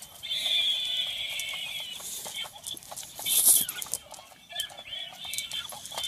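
High-pitched electronic squeaking from a Halloween toy mouse on a mousetrap, coming and going, with small ticks and clicks. About halfway through comes a short burst of loud close noise as the boxer noses up to the microphone.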